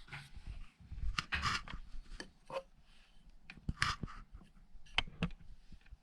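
Clicks, knocks and short rubbing scrapes of small objects being handled, irregular, with the loudest clusters about a second in, near the middle, and near the end.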